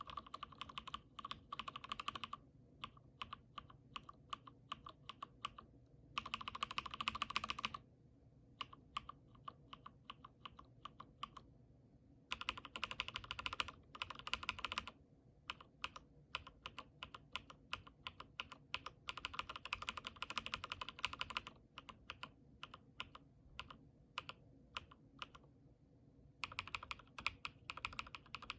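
Lubed and filmed linear mechanical keyboard switches being pressed: Cherry MX Black, Gateron KS3 Yellow, Durock POM and frankenswitches built from their parts. Fast runs of keystrokes alternate with stretches of slower, separate presses.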